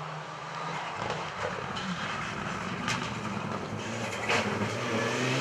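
Mitsubishi Lancer Evolution X rally car's engine approaching on a gravel stage, growing steadily louder, with a few sharp clicks along the way.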